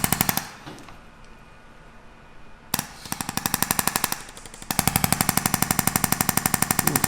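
Jackhammer pounding rapidly, about ten blows a second, in bursts: it stops about half a second in, breaks in again around three seconds in, and runs on steadily from about five seconds in.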